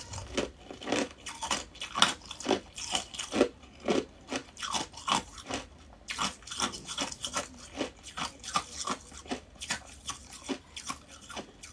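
A person chewing and crunching ice in her mouth, close to the microphone, with steady crunches about two a second.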